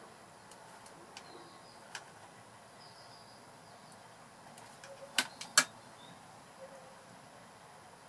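Quiet background hiss with a few faint ticks, then two sharp clicks about half a second apart a little past the middle, as a soldering iron is handled and set aside while wires are being soldered.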